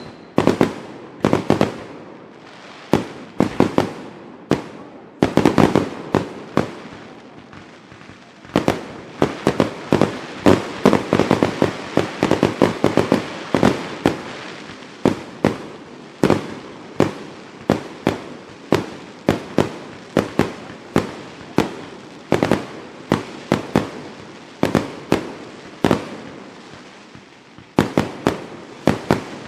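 Fireworks going off: a long run of sharp bangs at uneven spacing, coming thick and fast for a few seconds about ten seconds in.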